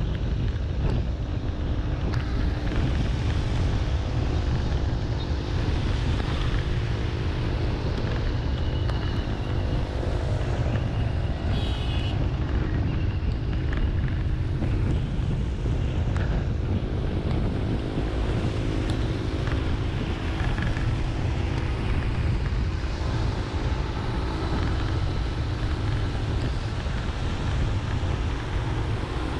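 Steady rumble of a vehicle driving through wet city traffic, with engine hum and wind buffeting the microphone. A brief high-pitched sound cuts in about twelve seconds in.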